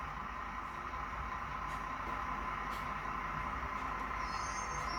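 Recorded diesel engine sound of a Windhoff MPV playing from a model train's DCC sound decoder through its small speaker, turned up to full volume: a steady engine drone, getting a little louder as it goes.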